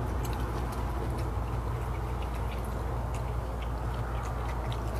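Chewing, with small crackles and clicks as a crusty fried chicken wing is pulled apart by hand over a plastic tray, over a steady low hum.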